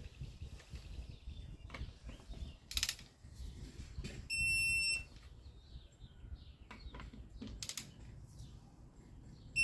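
Torque wrench's electronic beep sounding as the lug nuts are brought to torque: a steady high beep of under a second about four seconds in, and another just as it ends. Two short bursts of noise from the wrench work fall between them.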